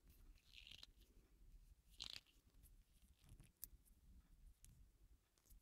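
Near silence with faint handling sounds: fingers tightening a tailpiece cord through its copper fitting, giving a few small clicks and rustles, the clearest about two seconds in.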